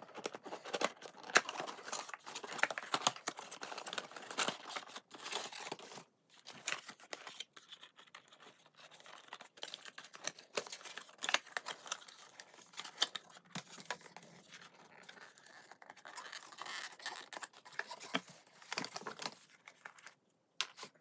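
Cardboard toy packaging being opened and pulled apart by hand: irregular scrapes, rustles and clicks of cardboard flaps and inserts, with light knocks as a hard plastic toy pram is freed from its cardboard tray.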